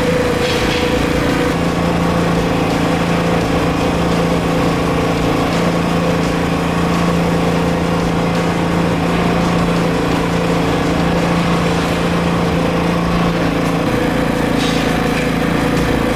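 Inverter generator's 327 cc four-stroke OHV engine running steadily, with a slight change in its tone about a second and a half in and again near the end.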